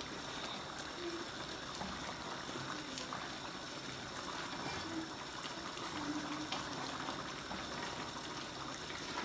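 Stew simmering and bubbling in an aluminium pot on a gas stove while it is stirred with a plastic spatula, with a few faint clicks.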